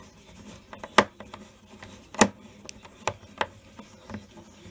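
Hand screwdriver turning the clamp screw of a plastic flush-mount electrical box, tightening it so the claw grips the wood panel. Sharp, irregular clicks about once a second as the screwdriver is turned and regripped, the loudest a little past two seconds in.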